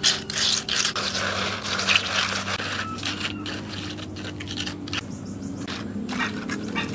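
Steel trowel spreading and smoothing wet cement mortar: a run of wet scraping strokes, heavier in the first few seconds, then lighter smoothing passes.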